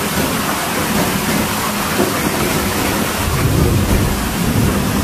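Heavy hail and rain falling steadily in a storm, with a low rumble underneath that swells about three to four seconds in.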